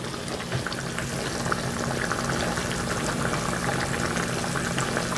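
Kasujiru (sake-lees and miso soup with salmon) simmering in an earthenware donabe pot: the thick broth bubbles with a steady stream of small pops.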